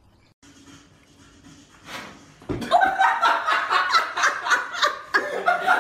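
A person laughing hard in quick repeated bursts, starting about two and a half seconds in after a faint quiet stretch.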